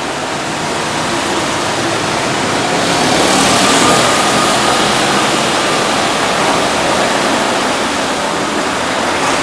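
Loud, steady rushing outdoor noise of a town street, swelling a little about three seconds in.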